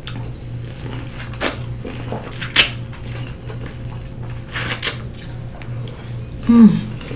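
Eating sounds at a seafood-boil table: a few scattered sharp clicks and cracks of shells and utensils, two close together past the middle, over a steady low hum.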